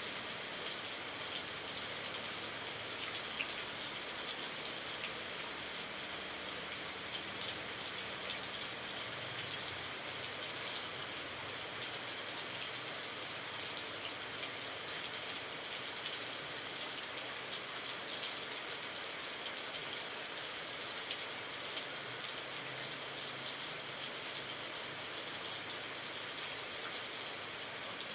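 Steady rain falling: a continuous hiss with scattered sharp ticks of drops.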